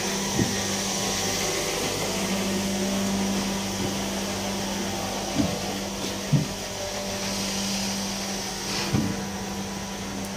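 Steady motor hum with a constant low tone and hiss, with a few short knocks scattered through it.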